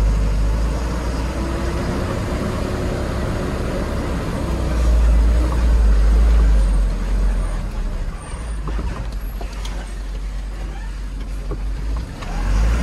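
Car driving over a rough dirt road, heard from inside the cabin: a steady low rumble of engine and tyres that swells for a couple of seconds in the middle, with a few light knocks and rattles later on.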